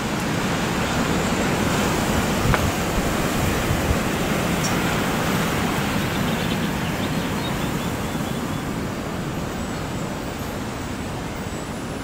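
Strong storm wind gusting, with the wind buffeting the microphone in a low fluttering rumble. The gust swells just after the start and slowly eases off toward the end.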